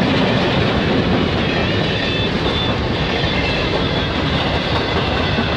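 Freight train passing close by. The last of its diesel locomotives goes by at the start, then covered hoppers and boxcars roll past with their steel wheels running over the rails, making a steady, loud rumble.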